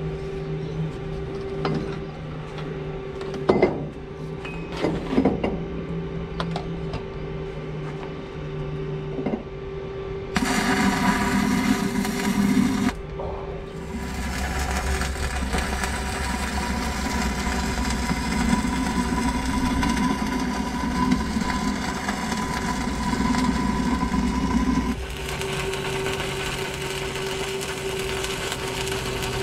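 Arc welding on a steel deck plate: stretches of crackling, hissing arc noise over a steady hum, breaking off and starting again several times.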